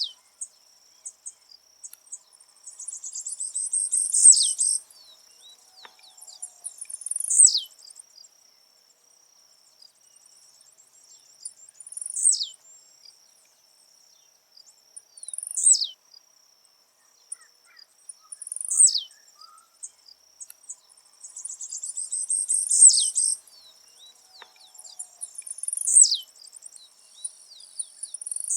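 Blue-black grassquit (tiziu) singing its short song again and again, about every three seconds: each a sharp high note that falls quickly in pitch, twice led in by a buzzy rattle. A steady high insect drone runs underneath.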